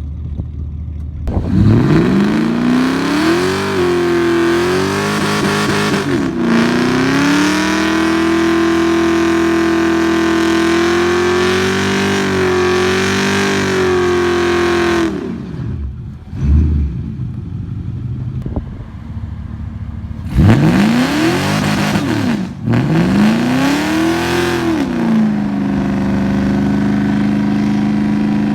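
Holden Commodore's LS1 V8 revved hard about a second in and held at high revs for around thirteen seconds, its pitch wavering, with a hiss over the top, as in a burnout skid. The revs then drop away, and after two more sharp rev blips it settles into a steady, faster-than-idle run.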